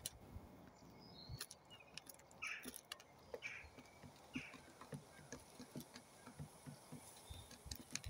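Pigeons pecking wheat grain off a wooden board: faint, irregular soft taps and clicks.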